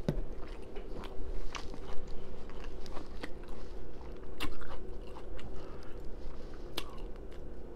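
Close-miked chewing and smacking of crispy fried fish and fried rice: irregular wet mouth clicks and crunches, over a faint steady hum.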